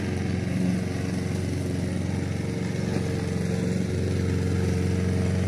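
Katana petrol lawn mower engine running steadily as it mows grass.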